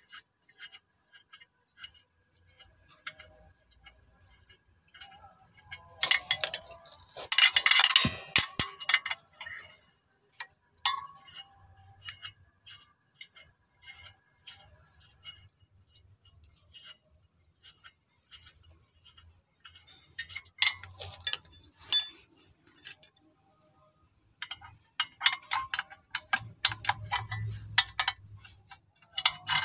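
Ratcheting wrench clicking in a steady run of sharp ticks as it undoes the bolts of a car's clutch pressure plate. Louder bursts of clinking, clattering metal come about a quarter of the way in and again over the last few seconds.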